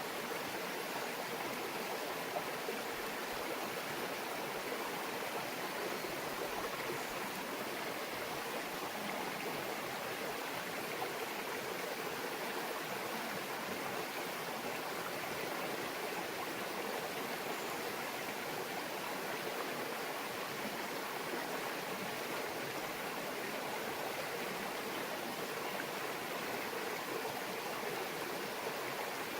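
Small mountain brook babbling steadily, an even, unbroken water sound.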